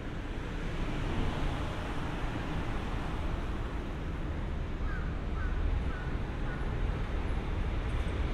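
Steady low rumble of a freight train moving through the station. A crow caws four quick times about five seconds in.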